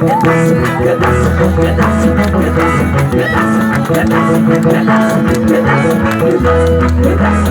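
Music with a steady percussive beat over held bass notes, the bass dropping out in the middle and returning near the end.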